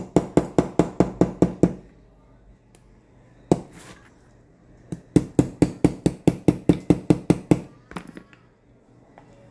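Small hammer tapping a pair of steel cuticle nippers against a metal block, metal on metal: two quick runs of light strikes, about six a second, with a single strike between them and a couple more near the end. The nipper jaws are being worked back into shape during repair and sharpening.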